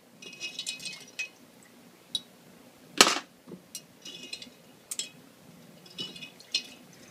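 Metal tweezers clinking and scraping against the inside of a glass mason jar of stripping solution while plastic figure parts are fished out, in short bursts of glassy chinks, with a sharper knock about three seconds in.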